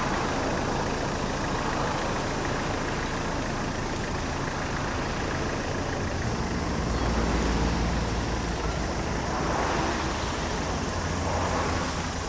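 Road and engine noise heard inside a moving car's cabin: a steady rush with a low rumble that swells a couple of times.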